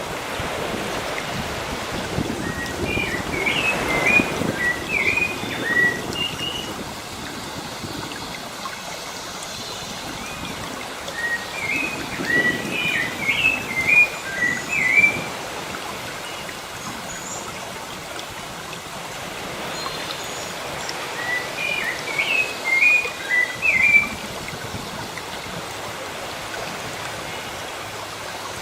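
Steady wash of sea waves, with a songbird singing a short phrase of quick, rapid chirps three times, about every nine seconds.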